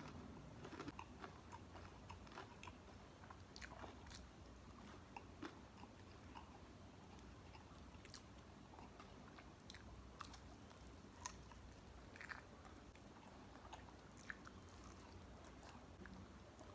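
Faint close-up eating sounds: a person chewing and biting, with scattered short crunchy clicks.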